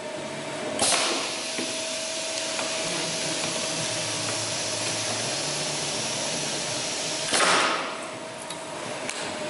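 PERFECT WFB 380B edge banding machine running during a test, a steady hiss with a faint steady hum. A louder rush of noise rises about a second in and again near the end.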